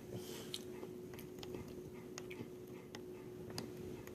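Faint, irregular small clicks and scrapes of a tool picking decay and packed food out of the cavity of an extracted wisdom tooth.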